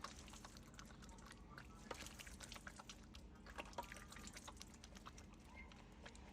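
Faint, scattered clicks and light taps, irregular throughout, over a low steady background hum.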